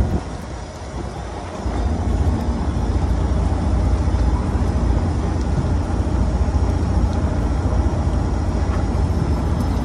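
Fishing boat's engine running steadily under a noisy hiss, a deep, even rumble with no distinct tones; it is quieter for the first second and a half, then holds level.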